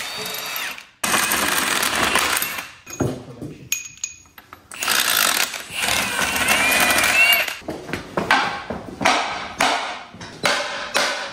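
Pneumatic impact wrench running in bursts, taking fasteners off a Detroit Diesel 6-71: two runs of a couple of seconds each, then a string of short bursts about twice a second near the end.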